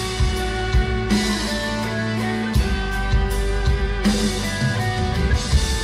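Progressive rock band playing live: electric guitars, bass, keyboards and drum kit, with sustained chords over a steady beat and crashes about a second in and again about four seconds in.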